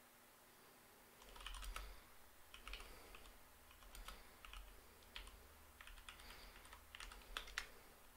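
Faint typing on a computer keyboard: irregular runs of key clicks starting about a second in, as a terminal command is entered.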